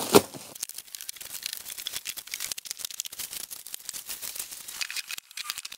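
Black plastic stretch wrap being torn and pulled off a boxed battery on a pallet, crinkling and crackling in a quick run of small snaps, with one louder crack just after the start.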